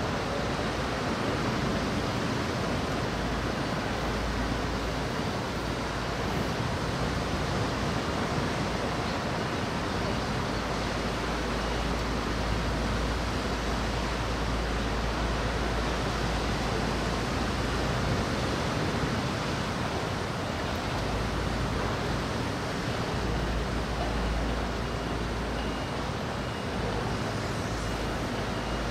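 Steady wind-and-rain noise with an uneven low rumble of wind buffeting the microphone.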